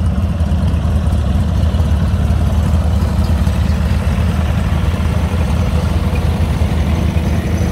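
Several Wheel Horse garden tractor engines running steadily as a line of the tractors drives slowly past.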